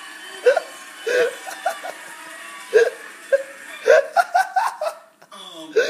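A person laughing in repeated short, high-pitched bursts.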